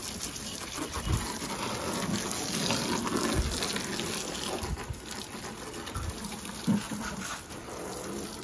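Water from a low-pressure household hose gushing and splashing over the plastic engine cover and parts of a car's engine bay, with a few short low thumps along the way.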